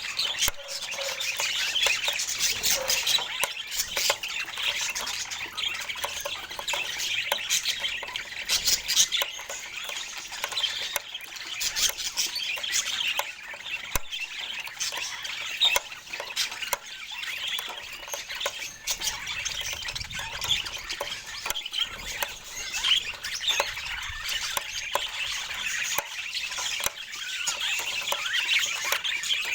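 Budgerigars chattering without a break: a dense stream of short chirps, warbles and squawks.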